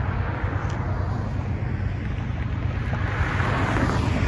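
Road traffic: cars driving past with tyre and engine noise, over a steady low wind rumble on the microphone. The traffic noise grows over the last second or so as more cars approach.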